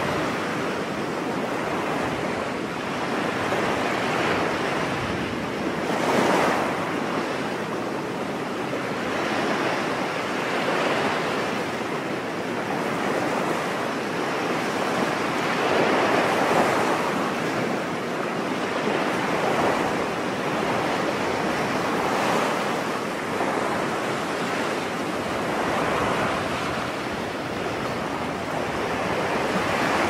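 Small ocean waves washing onto a beach: a steady hiss of surf that swells softly every few seconds as each wave comes in.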